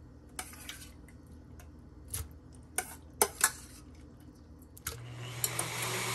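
A handful of sharp clinks and taps as boiled apple pieces are put into a plastic blender jar. About five seconds in, a countertop blender starts and runs steadily, pureeing the apple.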